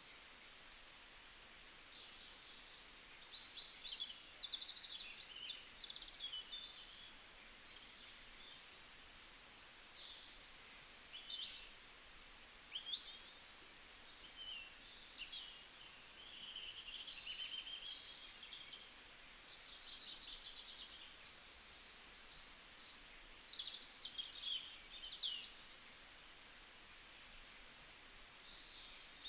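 Songbirds chirping and singing: many short, high calls, trills and quick sweeps that overlap and come in clusters.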